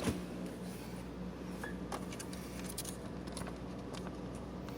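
Scattered small clicks and light rattles of things being handled, over a steady low hum.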